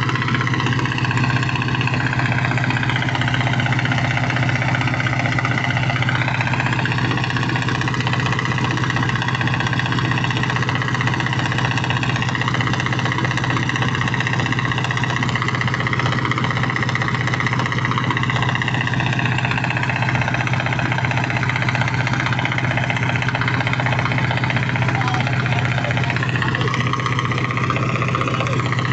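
Mitsubishi 8DC V8 diesel engine of a 15-ton boat running steadily at a constant speed.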